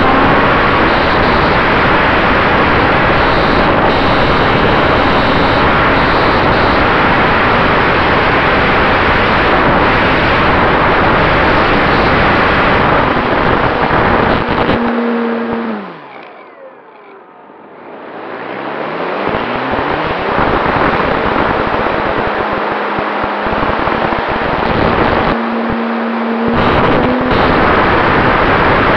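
Radio-controlled Cessna 188 model airplane in low flight, heard from its onboard camera as a loud rush of wind and propeller noise. About halfway through the noise drops away sharply for a few seconds, with a pitch that falls and then rises, before it comes back at full level.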